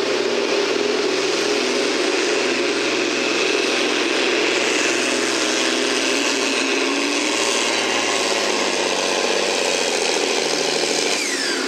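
John Deere diesel farm-stock tractor pulling a weight-transfer sled at full throttle, its engine running hard and steady under heavy load. Near the end the engine note drops as the pull winds down.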